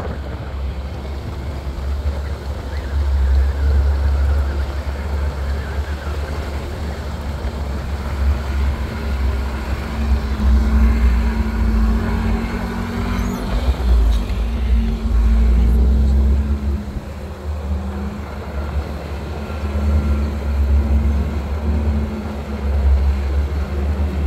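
Off-road vehicle driving on a rough dirt track: its engine runs under load with a heavy low rumble, the engine note rising and falling.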